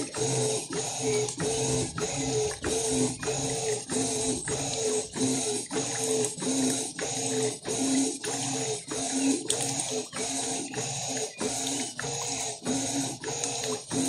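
Electrolux 12 kg top-loading washing machine agitating a load in its wash cycle: the motor hums as the agitator swings back and forth about twice a second, churning the water and clothes.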